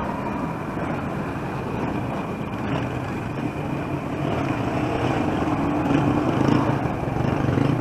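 A motor vehicle engine running close by, its low hum growing louder in the second half, over a steady hiss of street noise.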